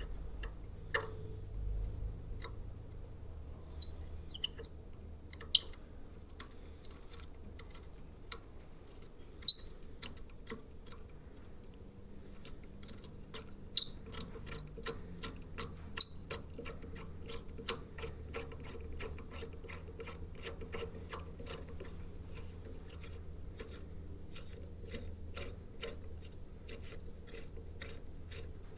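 Small sharp clicks and taps from hand work, a few louder ones scattered through the first half, then quick, fairly even light ticking for the rest, over a faint low hum.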